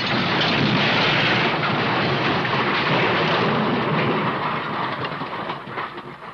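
A long, loud rumbling crash from a cartoon sound-effects library, dying away near the end with a few scattered clatters.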